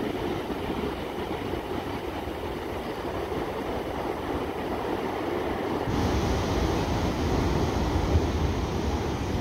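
Ocean surf breaking on a beach, a steady rush, with wind rumbling on the microphone; the rumble and hiss step up suddenly about six seconds in.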